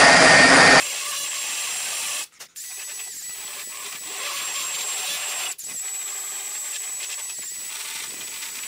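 Cordless drill spinning a carbide burr, grinding out a crack in a wooden door frame to make room for filler. Loud motor whine for about the first second, then a quieter steady high whine with the burr grinding in the wood, cut by a few brief gaps.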